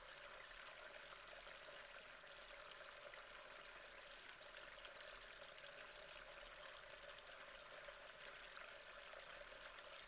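Near silence: a faint steady hiss with a low hum underneath.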